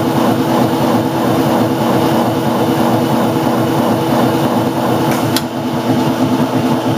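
Whizbang chicken plucker running empty: its chain-driven, 195 RPM plucker tub and motor give a steady tone over a dense rush, with its automatic water spray on. About five seconds in a short sharp click-hiss comes as the pneumatic trap door swings open at the end of the timed cycle.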